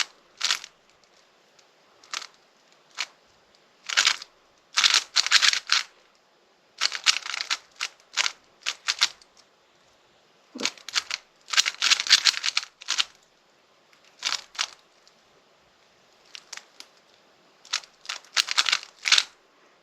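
Speed cube being turned by hand: quick runs of sharp plastic clicks as the layers are turned, in bursts of a second or so separated by short pauses.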